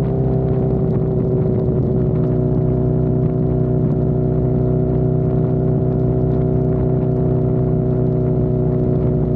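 Honda CB1000R's inline-four engine running at a steady pitch while the motorcycle is ridden, with no change in revs.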